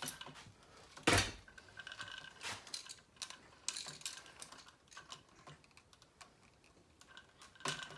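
Small clicks and taps of an electrical outlet and its wires being handled, with a sharp knock about a second in and a few lighter knocks after.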